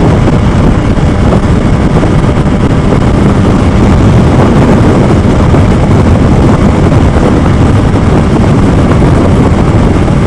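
Steady rush of wind and motorcycle noise at highway speed, heard through a helmet-mounted Bluetooth headset microphone, loud and unbroken.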